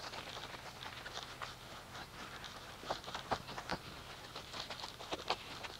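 Scattered light taps and wet patters of a hand car wash: footsteps on wet pavement and a soapy wash mitt lifted from its bucket and worked over the car's glass and paint.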